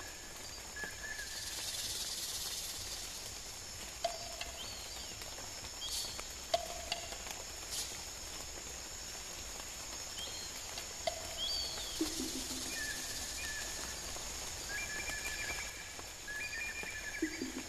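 Outdoor wildlife ambience: a steady high-pitched insect chorus with scattered short animal calls at different pitches, and a few sharp clicks in the middle.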